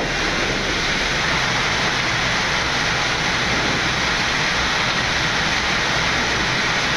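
Steady rushing background noise of a Boeing 787 flight deck in climb: airflow over the nose and air-conditioning hiss, even and unbroken throughout.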